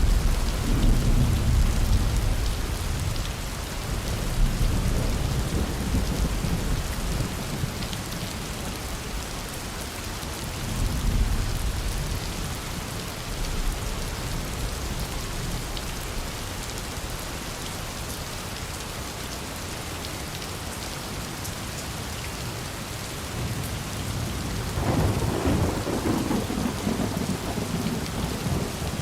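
Steady rain falling, with low rolling thunder rumbling over it: a long rumble at the start, a shorter one about eleven seconds in, and another building up near the end.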